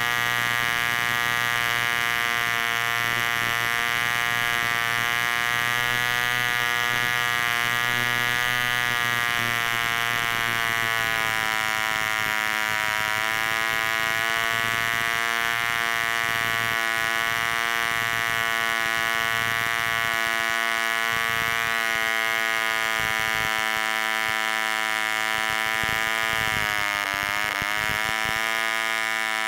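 Super Hurricane 24, a 1940s 0.24 cu in two-stroke spark-ignition model engine, running flat out on a 10x6 propeller with a steady high-pitched buzz. Near the end its pitch dips briefly and recovers.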